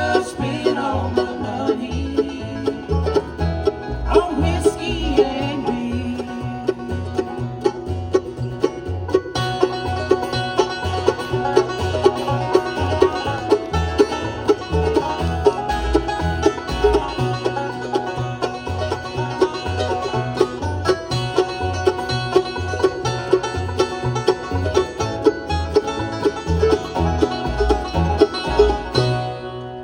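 Bluegrass band playing, with banjo picking up front over guitar and a steady low bass line. The music winds down to its final notes near the end.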